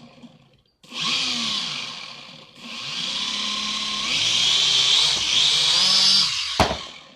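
A freshly rebuilt toy quadcopter's four motors and propellers whirring, with a high whine. They spin up briefly about a second in and fade, then run up again and grow louder as the drone lifts off. A sharp knock comes near the end, and then the motors wind down and stop.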